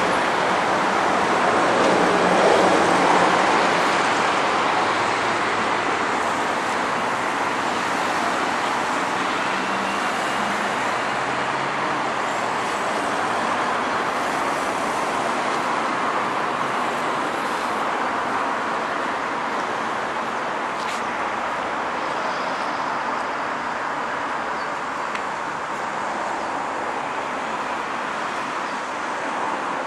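City road traffic: a steady rush of passing cars and buses, a little louder in the first few seconds.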